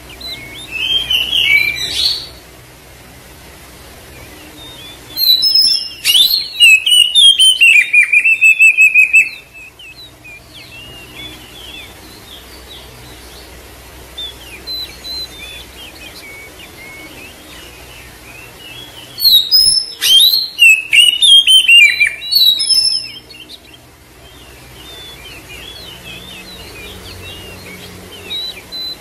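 Oriental magpie-robin (kacer) song: three loud bursts of varied whistles and fast twittering notes, the middle one lasting about four seconds, with soft chirping between them. This is kacer song used as a lure to provoke a silent, stressed kacer into singing.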